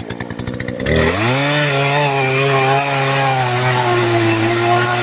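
Two-stroke chainsaw idling for about a second, then revved up to full throttle and held there, cutting into a white oak log.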